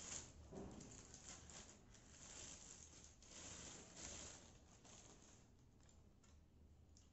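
Faint rustling and crinkling of a clear plastic bag as a folded tripod light stand is pulled out of it, in short irregular bursts that thin out after about five seconds.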